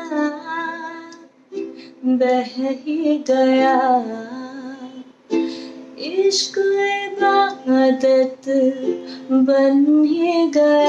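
A woman singing a slow, held-note melody while accompanying herself on a ukulele.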